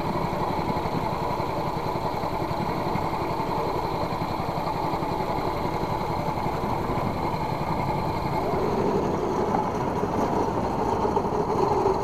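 Fishing boat's engine running steadily while under way, a constant even drone.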